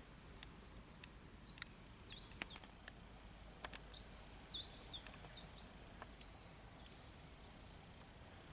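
Faint steady background hiss with a bird chirping in a quick run of short high notes for a few seconds around the middle, and a few scattered faint clicks.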